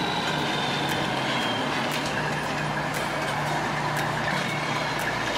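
A steady engine-like running noise: a low hum under a constant hiss, with a few faint high clicks.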